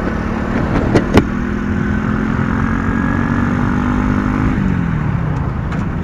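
RX9 50 cc motorcycle engine running at steady revs under way; about four and a half seconds in the revs drop and the engine note falls in pitch, then holds steady. Two sharp clicks sound close together about a second in.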